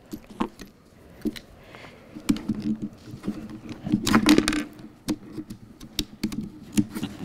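Laptop keys and trackpad clicked and tapped in scattered, irregular clicks, with a louder, busier stretch of clicking and handling about four seconds in.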